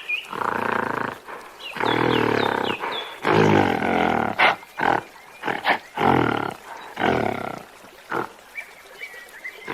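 Monkey calling: a series of loud, harsh calls, three longer ones in the first few seconds followed by several shorter ones, with faint bird chirps in the background near the start and end.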